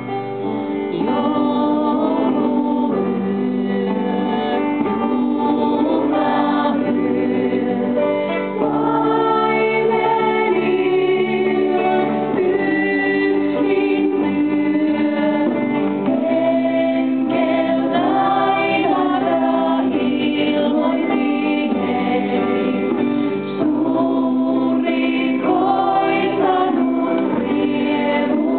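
Two women singing a song together into handheld microphones, amplified over a loudspeaker, with instrumental accompaniment holding steady notes underneath.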